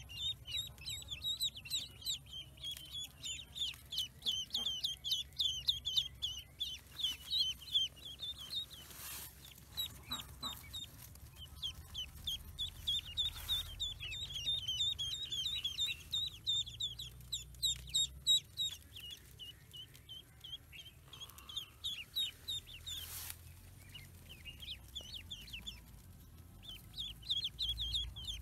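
Ducklings peeping: rapid strings of short, high peeps, with a few brief pauses.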